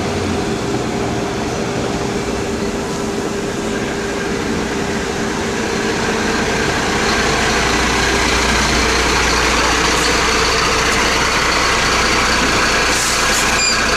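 Diesel engine of a Mercedes-Benz 1824 fire service water tanker running as the truck drives up and pulls alongside, getting louder about halfway through. No siren is sounding.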